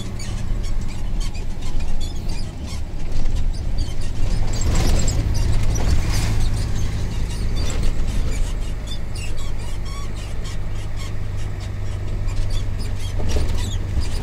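Mercedes Actros 2643's V8 diesel running steadily at low revs while the truck drives along, heard as a steady drone from inside the cab. Two louder noises come about five and six seconds in.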